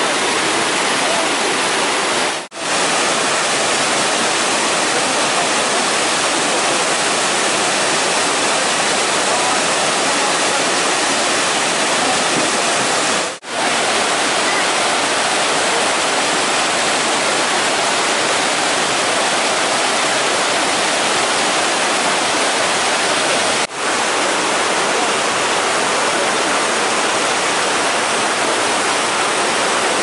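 Mountain stream rushing over mossy boulders in white-water rapids, a steady loud rush of water. The sound drops out briefly three times.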